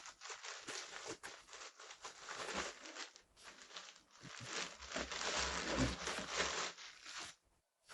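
Packaging crinkling and tearing as a bulky item is unwrapped by hand, with many small crackles; it stops about seven seconds in.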